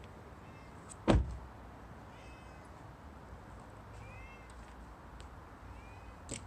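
A house cat meowing faintly behind a window pane, several short calls that rise and fall in pitch. A single loud thump about a second in.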